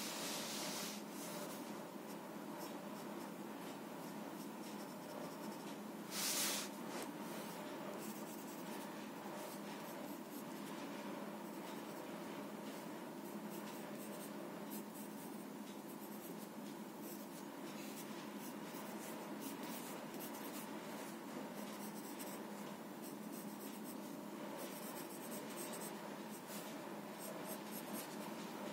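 Graphite sketch pencil scratching and shading on paper in many short strokes, with one louder scrape about six seconds in.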